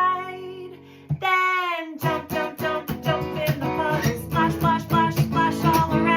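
Children's song: a sung note near the start, then an acoustic guitar strumming a steady rhythm from about two seconds in.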